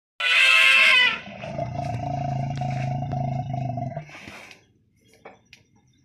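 Asian elephant trumpeting loudly for about a second, then giving a lower, steady call for about three seconds that stops suddenly.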